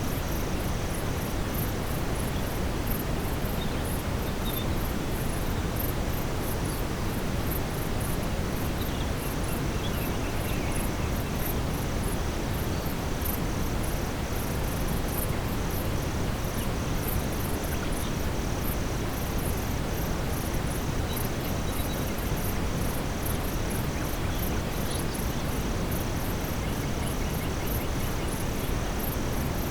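Steady brown noise, a deep even hiss, mixed with a forest ambience at nightfall: insects such as crickets chirping high in a fast, even pulse. A few faint, short high chirps come through about ten seconds in and again near the end.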